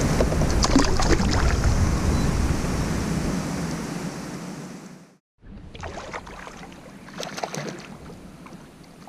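Wind rumbling on the microphone and water lapping around a fishing kayak, with scattered clicks and knocks from handling. It fades to a moment of silence about five seconds in, then softer lapping water and clicks return.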